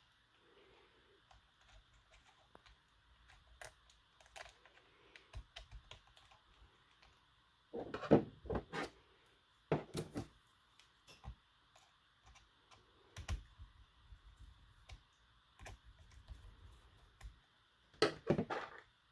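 Small hard plastic clicks and taps at an uneven pace, with a few louder clusters of knocks, as plastic receiver box covers on an RC truck are handled, seated and screwed back down.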